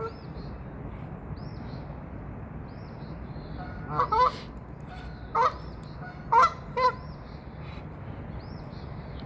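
Geese honking: five loud honks, two about four seconds in, one a second later, and a final pair near seven seconds. They sound over a steady hiss of wind, with faint high chirps repeating throughout.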